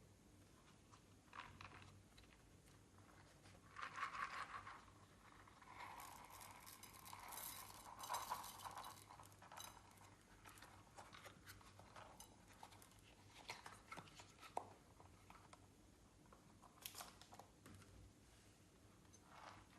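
Clear slime being squished and mixed by hand: faint sticky crackles, clicks and small pops, with louder crackly bursts about four seconds in, between six and nine seconds, and again near the end.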